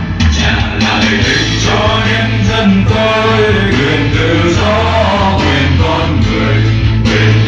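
A group of young singers singing together over loud amplified accompaniment with guitar and a strong bass line.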